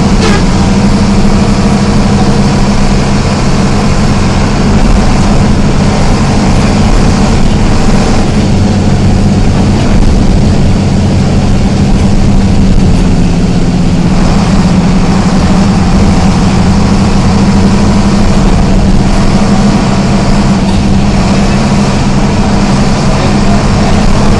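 Diesel engine of an Isuzu MT133RHD bus running steadily at an even, unchanging pitch.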